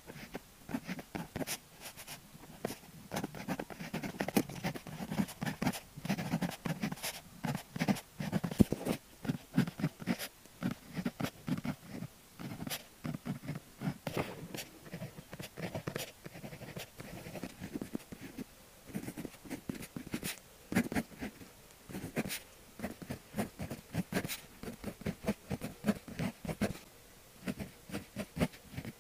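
Close-miked technical fineliner pen writing on paper: a quick, irregular series of short scratchy strokes and light taps of the nib, with brief pauses between characters.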